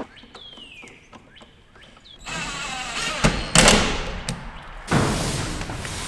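Cordless drill driving screws to fasten an outlet into its box. About five seconds in, heavy stranded 6-gauge cable is pulled and dragged along a steel-sided wall with a steady scraping rush.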